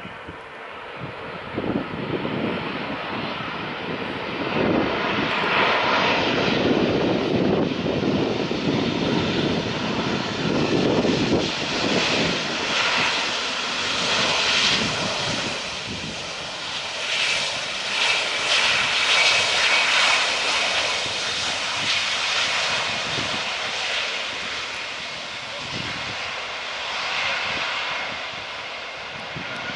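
Twin jet engines of an Airbus A320-family airliner landing and rolling out on the runway. The noise builds over the first few seconds, stays loud through the middle as the jet passes, and eases off as it rolls away.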